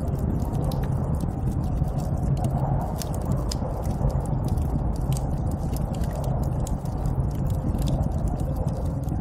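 Snowstorm ambience: a steady low rush of wind with many small crackling clicks scattered throughout.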